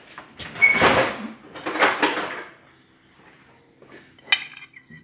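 Dishes and cutlery handled in plating pasta: two scraping clatters about a second apart, then a single sharp clink of a plate near the end.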